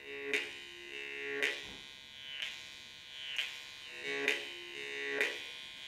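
Yakut khomus (jaw harp) played as a steady buzzing drone, its tongue struck about once a second, with the overtones above the drone shifting in pitch between strikes.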